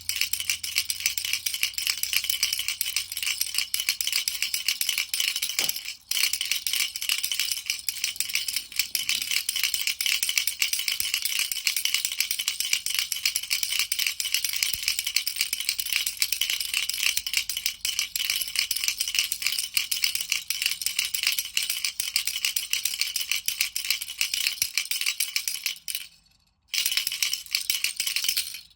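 Baby rattle being shaken fast and without letup, a dense, high rattling. It breaks off briefly about six seconds in and again for about a second near the end.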